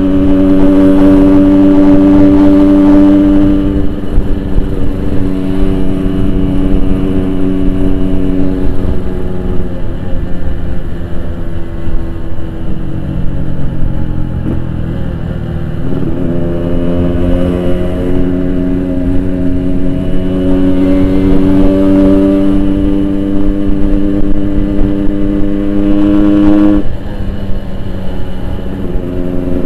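Yamaha RX-King 135cc two-stroke single-cylinder motorcycle running through a Boban aftermarket exhaust while being ridden. The engine note holds steady, sinks lower from about ten seconds in as it eases off, then climbs again from about sixteen seconds. Near the end the note changes abruptly and briefly drops in loudness.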